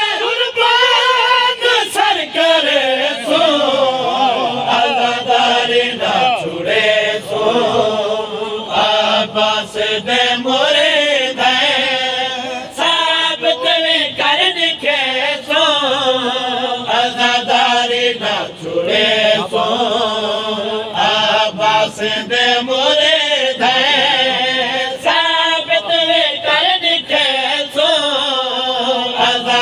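A man's voice chanting a devotional kalam without instruments, the melody sliding and bending through long held lines.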